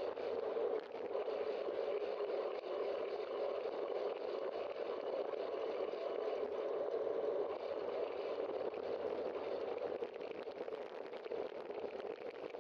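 Steady rushing noise of riding a bicycle: wind over the bike-mounted camera and tyres rolling on asphalt, with no distinct events.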